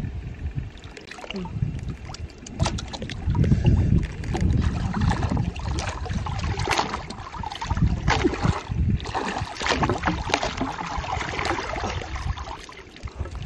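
Shallow muddy water sloshing and splashing as a bamboo-tube eel trap is worked and lifted out, with wind buffeting the microphone.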